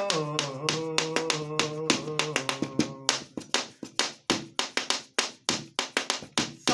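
Hand percussion keeps a fast, steady rhythm of about five strikes a second as a song's accompaniment. A held, bending melodic line sounds over it for the first few seconds. Then the rhythm carries on alone.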